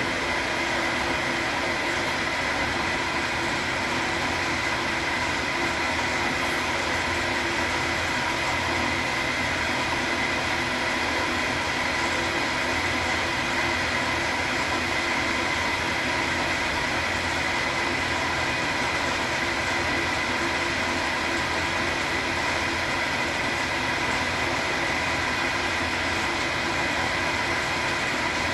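Schaublin SV-51 milling machine running steadily, its motor and gearing giving a constant whine with several steady tones, while milling the bottom of a machinist vice.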